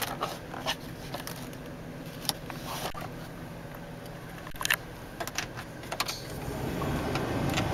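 Scattered light clicks and knocks of the van's interior fittings being handled (overhead trim, sun visor, dash knobs) over a steady low hum inside the cabin. About seven seconds in, a rushing air noise builds as the climate-control knobs are turned and the blower comes on.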